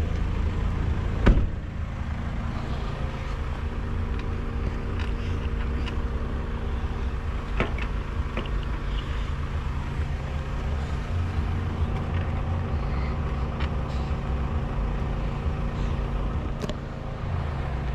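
Car engine idling steadily, with a sharp knock about a second in and a few lighter clicks and taps from the bike rack being handled.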